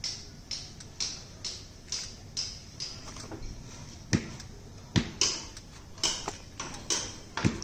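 Smartphone touchscreen keyboard clicks as a phone is tapped, a short click about every half second, with three louder knocks about four, five and seven and a half seconds in.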